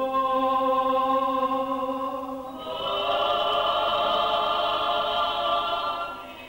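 Soundtrack music: a wordless choir holding a chord, which shifts to a higher, fuller chord about two and a half seconds in and fades near the end.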